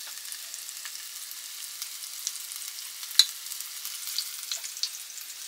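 Floured chicken breast strips sizzling steadily in hot olive oil in a non-stick frying pan, with scattered small crackles. A single sharp click comes about three seconds in.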